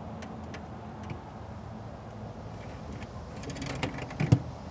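Light clicks and rattles of the wire racks in a metal cabinet smoker as salmon pieces are laid on them, with a quick run of clicks and one sharp knock near the end, over a faint steady low hum.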